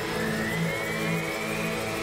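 Electric motors and propellers of an FPV aircraft whining in flight, the pitch rising slowly.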